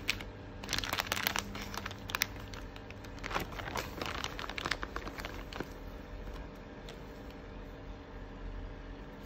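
Plastic food bag crinkling and rustling as hands open it and reach in for a bun, a busy run of crackles that dies away about six seconds in. A low steady hum goes on underneath.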